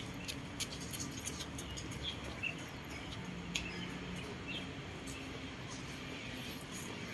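Outdoor city-park ambience: a steady low background hum with a few short, high bird chirps and scattered faint clicks.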